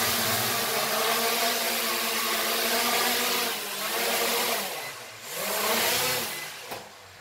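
Hubsan H501S quadcopter's brushless motors and propellers whirring at full speed during lift-off and a short hover. The pitch and level dip twice with throttle changes, then the motors wind down near the end.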